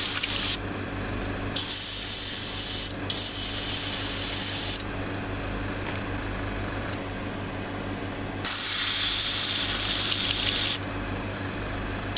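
Airbrush spraying paint in on-off bursts of hiss, each one to two seconds long, with a long pause in the middle, over a steady low hum.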